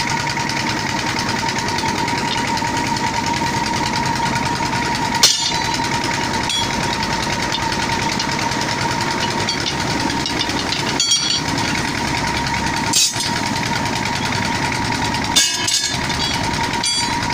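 A motor running steadily with a constant high whine, and five sharp knocks at irregular intervals.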